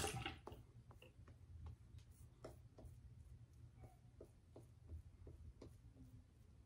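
Shaving brush working lather on the face: faint, irregular soft ticks, a few a second.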